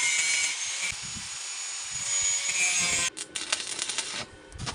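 An angle grinder cutting through a steel pipe: a steady high whine over a harsh grinding hiss, stopping about three seconds in. It is followed by the irregular crackle of a stick-welding arc.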